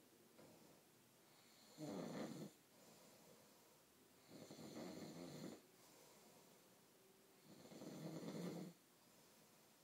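A man snoring in his sleep: three snores about three seconds apart.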